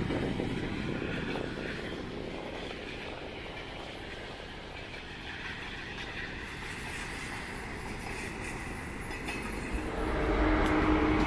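Train noise at the track: a rumble dies away over the first few seconds, then about ten seconds in a train grows louder with a steady hum.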